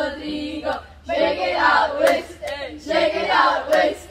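Several young female voices singing together in short, broken phrases.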